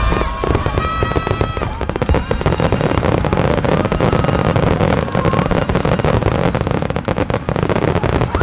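Fireworks barrage: many aerial shells bursting at once, giving a dense, continuous crackle and booming with no pause.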